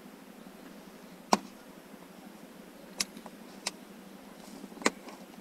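Four sharp clicks of a thin metal pick tool prying at a sun visor's plastic retaining clip on the car's headliner, the first and last loudest.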